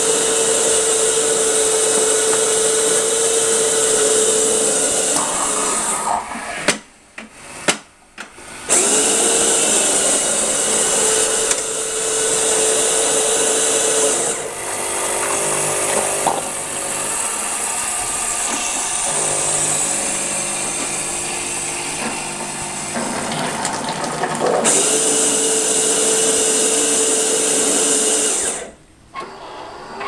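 Saeco Royal Cappuccino bean-to-cup machine frothing milk: steam hissing with a steady hum from the machine, cutting out briefly about seven seconds in and again near the end. In the middle stretch the hiss eases and a lower mechanical drone joins in, as the machine brews coffee into a second cup while it froths.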